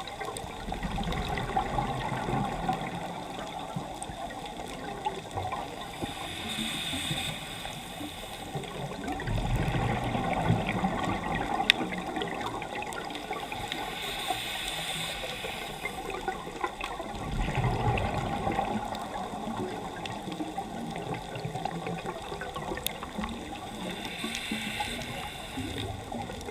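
Scuba regulator breathing heard underwater: a hiss on each inhale, then a rush of bubbles on each exhale, about three slow breaths, over a faint constant crackle.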